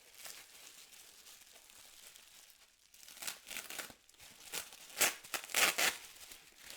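Packaging crinkling and rustling as a part is unwrapped by hand, quiet at first, then a run of louder crinkles in the second half.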